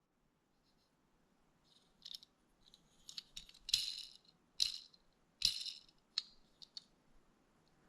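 A small die-cast toy truck and its plastic packaging rattling as they are handled, in several short, irregular bursts with a few soft knocks.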